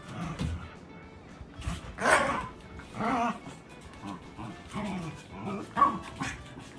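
A Shiba Inu and a Siberian husky play-fighting, with short bursts of growling and barking several times, the loudest a couple of seconds in and again about three seconds in.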